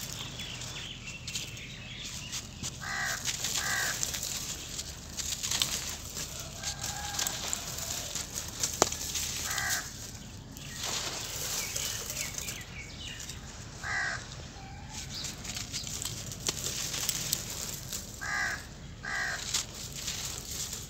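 Dry sand-cement lumps crunching and crumbling in bare hands, with grit and dust pattering down through a round wire grill onto dusty ground. A bird calls several times in short calls, some of them in pairs.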